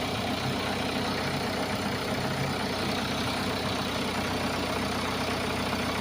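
Hyundai Accent CRDi diesel engine idling steadily after a replacement relay cured its crank-only, no-start fault.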